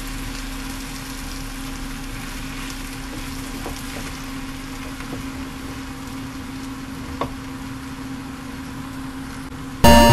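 Stir-fry of cucumber, carrot and black fungus sizzling in a frying pan over a steady mechanical hum, with a few light clicks of a wooden spatula against the pan and one louder click about seven seconds in. Background music starts abruptly at the very end.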